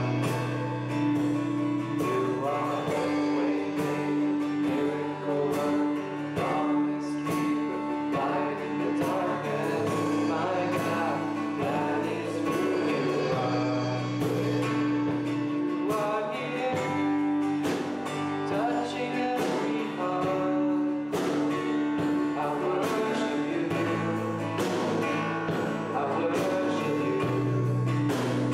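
Live worship band playing a slow song: strummed acoustic guitar, a second guitar and drums, with voices singing along.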